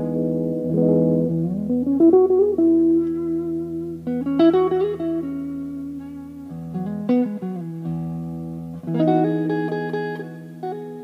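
Greco WS-STD electric guitar, made in Japan in 2001, played solo: chords and single notes struck every second or two and left to ring, with a slide up into a held note early on.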